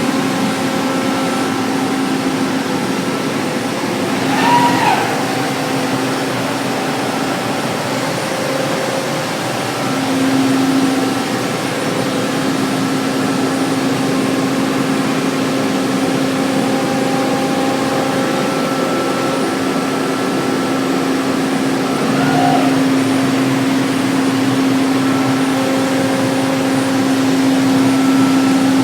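Biesse Rover CNC router running steadily while machining a door, a constant hum and hiss of the spindle and dust extraction. A short rising whine comes twice, about four seconds in and again past the twenty-second mark.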